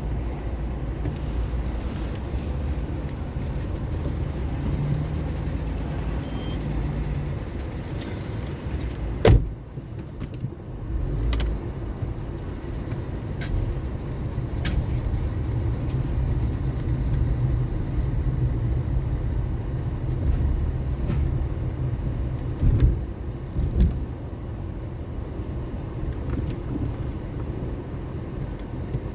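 Car driving on city streets: a steady low rumble of engine and tyres. A sharp knock about a third of the way in is the loudest sound, and two smaller thumps follow later.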